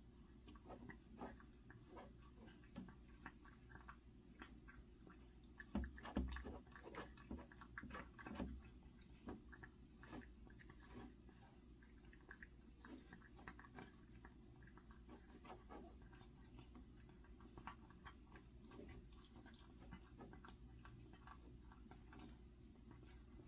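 A cat eating after tooth-extraction surgery for stomatitis. Faint, irregular chewing clicks that are a little louder about six to eight seconds in.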